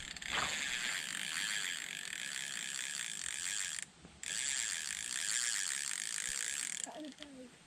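Spinning reel ratcheting with rapid, even clicks as the line is worked under the bent rod. It stops abruptly for half a second about four seconds in, then resumes and stops shortly before the end.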